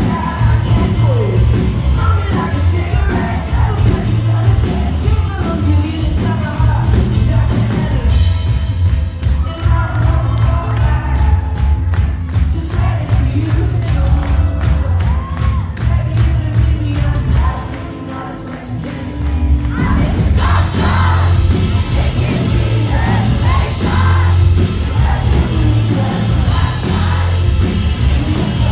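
Live pop-rock band playing loudly with a lead singer over heavy bass and drums, with the crowd cheering along. The band thins out for a couple of seconds about two-thirds of the way in, then comes back in full.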